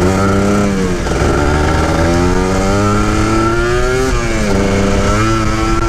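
Two-stroke Kawasaki Ninja 150 SE engine accelerating under way, its pitch climbing and dropping sharply at upshifts about a second in and again about four seconds in.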